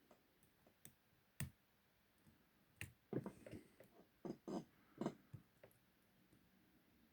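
Metal lock pick and tension wrench working the pins inside a large Tooltech padlock: faint scattered clicks, then a run of louder clicks and rattles from about three to five and a half seconds in.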